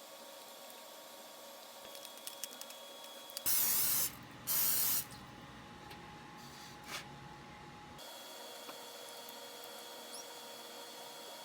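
Two short blasts of aerosol cooking spray, each about half a second long and a second apart, with a few light clicks before them.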